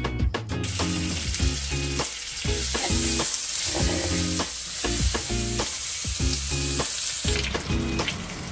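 Steak sizzling and frying in a hot pan, a dense hiss that starts abruptly just under a second in and cuts off suddenly near the end. Background music plays throughout.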